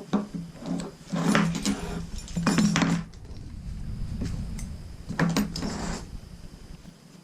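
Metal hardware on a tree-climbing saddle clinking and rattling as it is handled and rigged, in irregular bursts, busiest in the first three seconds and again briefly after about five seconds.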